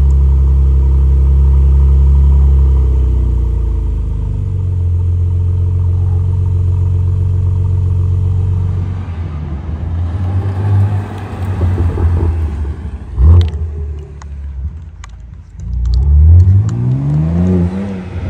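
BMW M4 G82 twin-turbo straight-six exhaust on a cold start, resonators still fitted. It runs a loud, steady fast idle that drops to a lower idle about four seconds in. In the second half it revs unevenly, with a sharp blip around the middle and a rising acceleration near the end as the car pulls away.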